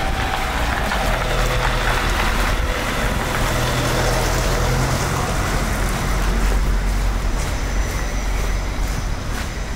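Road traffic noise: a steady low engine rumble with a wash of road noise, a vehicle passing close in the first few seconds.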